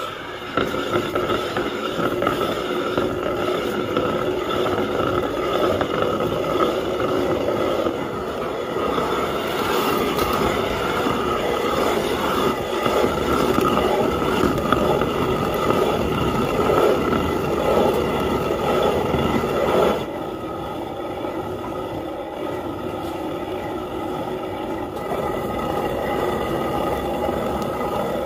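Hand-turned stone quern (chakki) grinding roasted wheat coarsely: a continuous rough rumble of stone turning on stone, a little quieter from about two-thirds of the way through.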